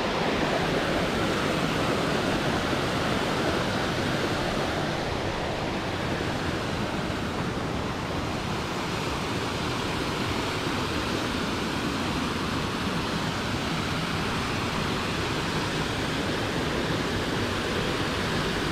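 Water rushing steadily over a small concrete dam spillway into a creek.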